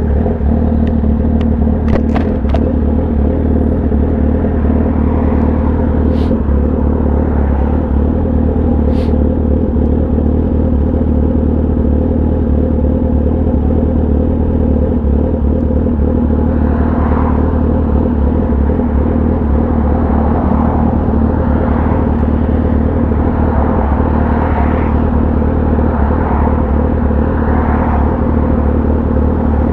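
Kawasaki ZX-10R's inline-four engine running through an SC-Project exhaust, holding a steady note with no revving. A few sharp clicks come about two seconds in.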